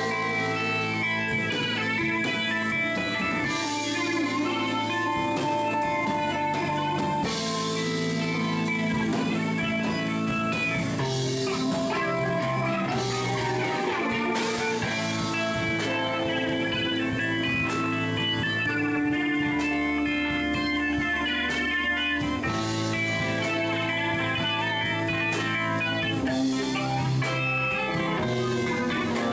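Live rock band playing an instrumental passage: electric guitars over bass and drums, with long held lead-guitar notes and repeated cymbal washes.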